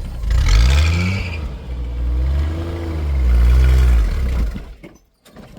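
Off-road truck engine just after starting, revved up and down in a few throttle blips, then dying away near the end. It is struggling to hold an idle, the kind of stumbling that is likened to a carbureted engine that had to be kept running by working the throttle by hand.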